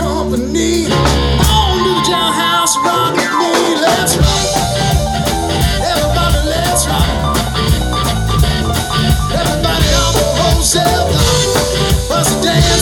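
Live rock band playing: electric guitar, drum kit and keyboard. The low end drops away for a few seconds about a second in, then comes back in.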